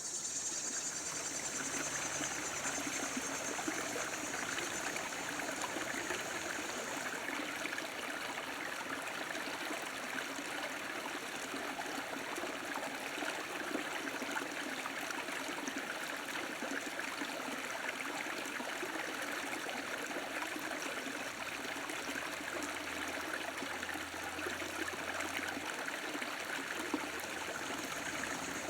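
A small stream flowing and trickling steadily. High-pitched insect chirring is heard over it for the first several seconds and again near the end.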